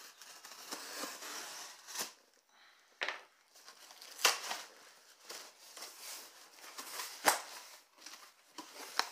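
Box cutter slicing through packing tape on a cardboard shipping box, then the tape tearing and the cardboard flaps being pulled open, with scraping and rustling and several sharp snaps.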